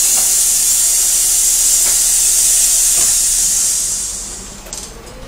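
Loud hiss of escaping compressed air that starts suddenly, holds steady for about three seconds, then fades away.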